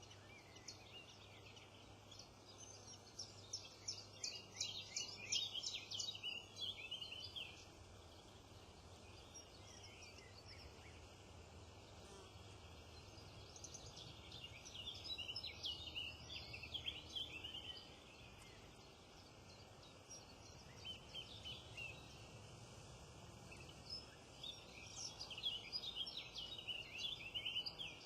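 Small songbirds singing in quick, high, rapidly repeated phrases, with three main bursts of a few seconds each over a faint steady background.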